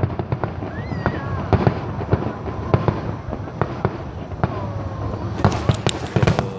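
Aerial fireworks bursting in a rapid series of bangs over a low rumble, with the bangs coming thickest in a cluster near the end.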